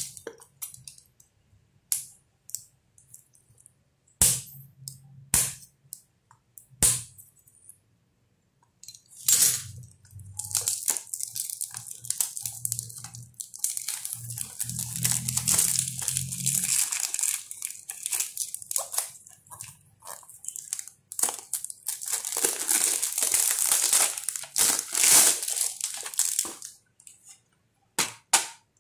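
Plastic shrink-wrap being picked at, torn and peeled off a DVD case by hand. Scattered clicks and taps of handling in the first several seconds, then a long stretch of crinkling and tearing.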